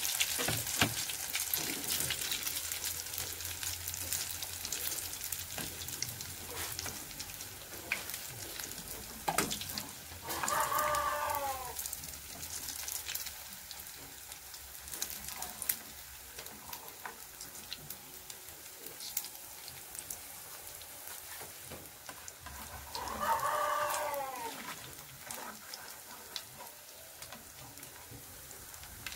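Batter of egg, cornstarch and chopped mulberry leaves deep-frying in a wok of oil, the sizzle dying down gradually, with clicks and scrapes of a metal slotted spoon against the wok. A rooster crows twice, about ten seconds in and again near the end.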